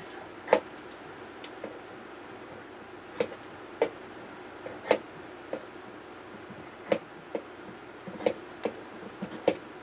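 Small pointed sewing scissors snipping into the seam allowance of stitched cotton fabric, clipping up to the stitching along the curves. About a dozen short, sharp snips come at irregular spacing.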